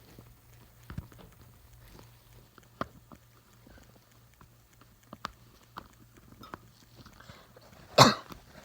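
A cockatoo rummaging and chewing inside a hole: scattered small clicks, taps and scrapes, with one louder crunching scrape about eight seconds in.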